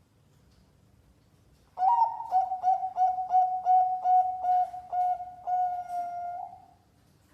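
Zebra dove (perkutut) cooing: after a short pause, a rapid run of about a dozen short notes on one steady pitch, ending in a longer drawn-out note. This is the song of a competition-class bird, used to prompt silent doves to coo.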